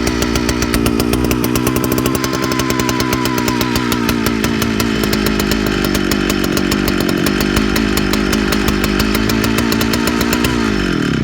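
Big vintage Jonsered chainsaw's two-stroke engine running, its pitch wavering slightly, then winding down and stopping near the end. The owner hears it coming in and out and suspects it is having trouble keeping a steady stream of fuel: fuel line, carb or seals.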